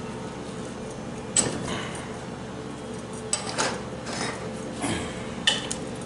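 Light metallic clicks and clinks of steel bolts and hand tools being handled against an automatic transmission case, about five sharp ones spread through, over a steady low background hum.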